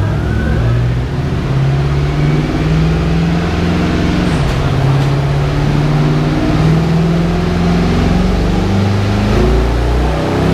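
Old pickup truck's engine running under load on a chassis dyno, its pitch stepping up and down, then rising steadily near the end as it revs higher.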